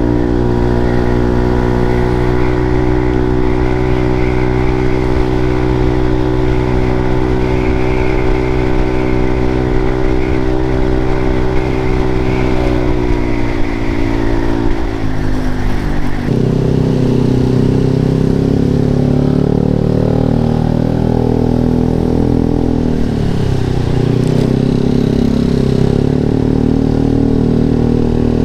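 Yamaha Lexi scooter's single-cylinder engine running through an aftermarket Arrow exhaust, holding a steady pitch, then falling away. A little over halfway through the sound changes abruptly to a lower, unsteady note that dips and recovers later on.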